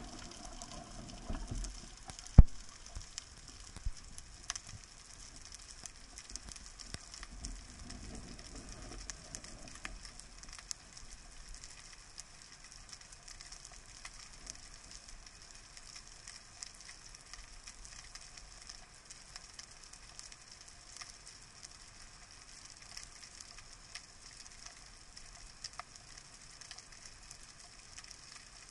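Underwater reef ambience picked up by a camera below the surface: a steady fine crackling and hiss. A single sharp click comes about two seconds in, and a low rumble of water movement runs through the first several seconds.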